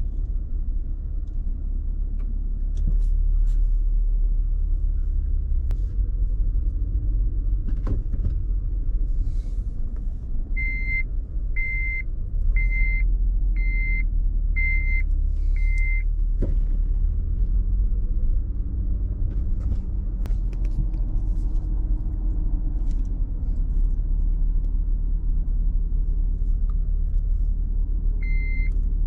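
Low rumble of a car's engine and road noise heard from inside the cabin while driving. The seatbelt reminder chime beeps about once a second, six times about a third of the way in and again near the end, because the driver's belt is unfastened.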